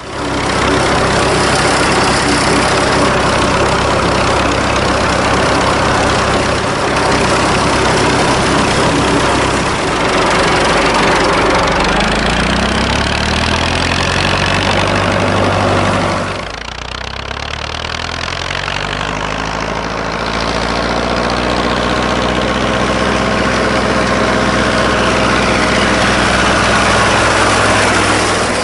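Fordson Major E1A tractor's four-cylinder diesel engine running hard: it revs up with its pitch climbing from about eleven seconds in, then after a sudden break about halfway it picks up speed again and runs on steadily under load.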